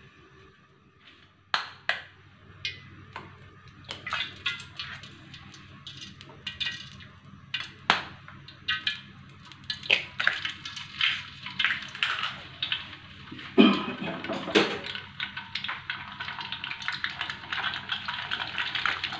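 Eggs frying in hot oil in an aluminium wok: scattered pops and spits that thicken as the eggs are cracked in, with a loud sputter about two-thirds through, settling into a dense, steady sizzle near the end.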